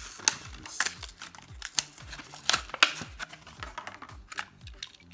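Stiff clear plastic blister packaging of a Hot Wheels 1:64 diecast car being torn from its cardboard backing and pulled open by hand: irregular crackling and sharp clicks, a few of them loud.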